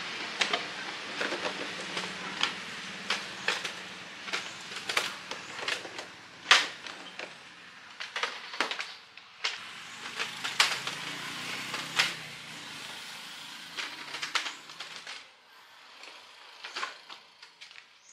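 Irregular sharp knocks and clinks, dozens of them, over a steady hiss, dying away to a few scattered clicks near the end.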